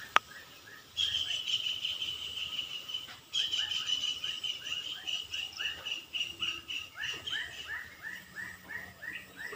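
Outdoor animal calls: a short chirp repeated about three times a second throughout, joined from about a second in by a rapidly pulsing buzzing call that breaks off briefly near three seconds and fades out near seven and a half seconds. A single sharp click comes just after the start.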